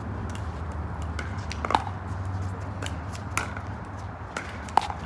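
Pickleball rally: sharp pops of paddles striking a plastic pickleball, roughly every second and a half, with the loudest about two seconds in. A steady low hum sits underneath.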